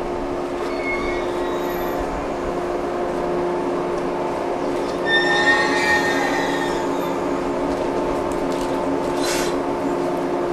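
Shinano Railway 115-series electric train: a steady hum from the train, with a brief squeal of wheels on the rail about five seconds in.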